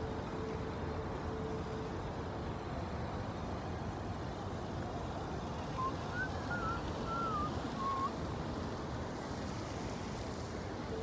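Steady outdoor city street noise, a rumble of traffic, with a few short wavering high chirps about six to eight seconds in.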